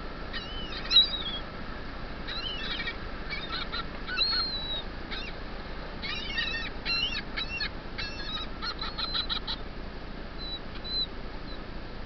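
Gulls calling: a string of short, pitch-bending cries, most of them in the first nine and a half seconds, ending in a quick run of short notes, with a couple of faint calls near the end, over a steady hiss.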